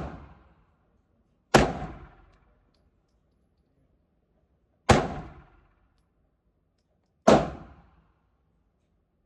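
Glock pistol fired three times, single shots a few seconds apart, each a sharp crack with a short echo dying away over about half a second.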